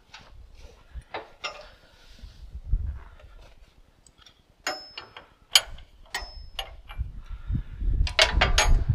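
Metal tools and hydraulic hose fittings clinking and knocking while being handled. Several sharp clinks carry a brief metallic ring, and a quick run of clinks and dull knocks comes near the end.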